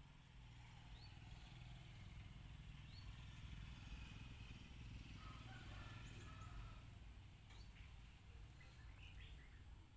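Near silence: faint outdoor ambience with a steady low rumble and a few faint, brief high chirps.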